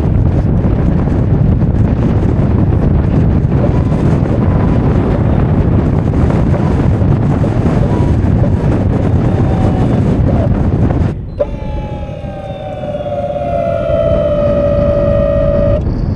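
Wind buffeting the microphone in a snowstorm, a loud steady rush. About eleven seconds in it cuts off with a click to sustained synthesizer tones that glide slowly downward.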